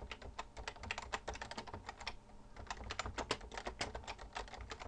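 Typing on a computer keyboard: quick, irregular key clicks as a command is typed, with a short pause a little past the middle.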